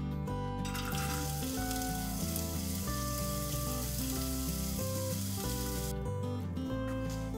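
Diced onion frying in hot oil in a pot, a sizzle that starts suddenly about a second in and cuts off sharply near the end. Background music plays throughout.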